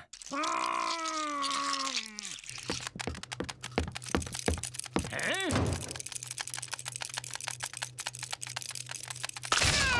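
Cartoon sound effects: a long moan falling in pitch, then rapid clicking and snapping of lobster claws over a low pulsing hum, with one short rising-and-falling tone about halfway through.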